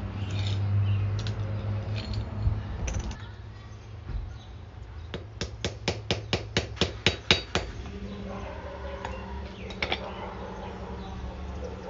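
Hand tools working on a steel shifter linkage as it is taken apart, making scattered metallic clicks and taps. A little after halfway comes a quick even run of about a dozen sharp metal clicks, about five a second.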